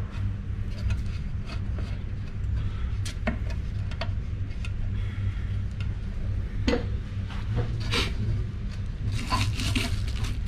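Hands fitting parts onto an intake manifold: scattered sharp clicks, light knocks and short scrapes of metal fittings against the manifold, with a quick cluster of them near the end. A steady low hum runs underneath.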